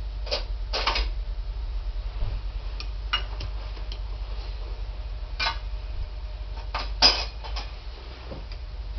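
Metal hand tools clicking and clinking as sockets are tried on a turbocharger bolt: a few sharp, separate clicks spaced irregularly, over a steady low hum.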